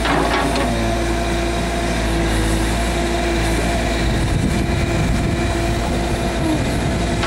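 Backhoe's diesel engine running steadily as it digs, with a sharp clank about a quarter second in and rougher, heavier running from about halfway through.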